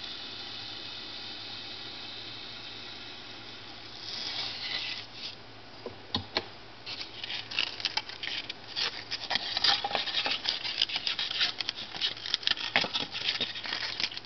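A hot stainless-steel wire melting through a pink foam block with a steady hiss. From about four seconds in, rapid irregular crackling and scratching as the foam pieces are handled and pulled apart.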